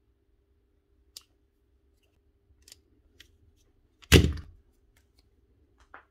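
A utility knife set down on a hard workbench with one loud, sharp clack about four seconds in, among a few light clicks of small wiring parts being handled.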